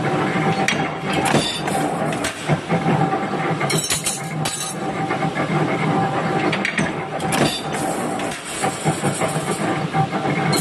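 J23-80 open-back inclinable mechanical power press running: a steady machine hum with a constant whining tone, broken by sharp metallic clanks and clinks at irregular moments.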